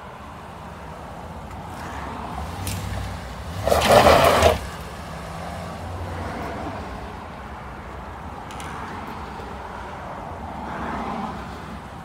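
Ram 1500 pickup truck engine running under load as it pulls on a tow strap, with one short, loud surge about four seconds in and a smaller swell near the end.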